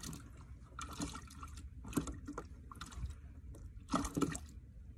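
Water splashing and sloshing in short, irregular bursts, a louder pair near the end, over a low steady rumble.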